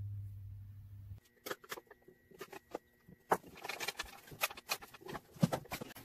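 A low steady hum that cuts off suddenly about a second in, then irregular clicks, taps and scratchy rustles of a heavy electrical cord and its plastic fittings being handled, with a couple of sharper taps.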